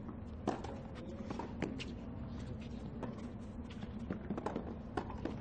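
Tennis ball struck back and forth with racquets in a rally on a hard court: a series of sharp pops, the loudest about half a second in, with more in a cluster near the end, over a steady low murmur of the stadium.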